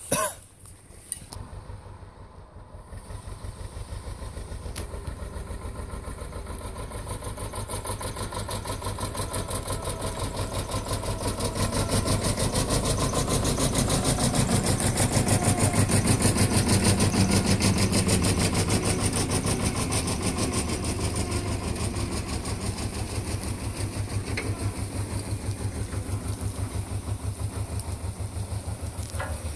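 Bolinder-Munktell Victor 230 tractor engine running with a fast, even firing beat, getting louder a few seconds in and working hardest partway through as it tows a stuck car on a strap, then easing slightly. A sharp knock sounds at the very start.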